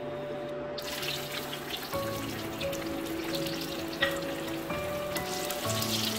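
Cashew nuts sizzling in hot oil in a frying pan, the hiss starting about a second in, with one sharp click about four seconds in. Background music plays throughout.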